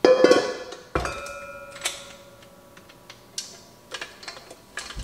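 Stainless steel mixing bowls clanking on the counter: a loud clatter at the start, then a second knock about a second in that leaves a bowl ringing for about two seconds. Scattered light clicks and knocks follow as the stand mixer's tilt head is lowered onto the bowl.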